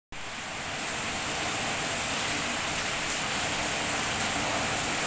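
Heavy rain pouring down, a dense, even hiss that holds steady throughout.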